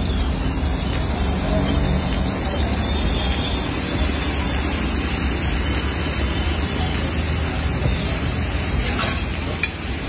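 Egg mixture and poured Fanta sizzling steadily on a hot flat griddle, with a brief metal spatula clink about nine seconds in.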